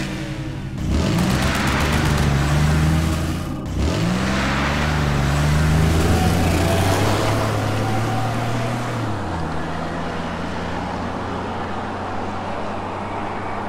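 Monster truck engine sound effect. The engines rev up twice, about a second in and again about four seconds in, run loud and steady, then settle to a lower idle near the end.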